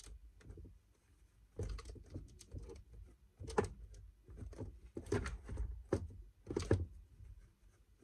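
A paper tissue pressed and rubbed over the top of a cardboard box to stick down a glued decoration: a string of irregular rustles and dull thumps, with a few stronger strokes in the second half.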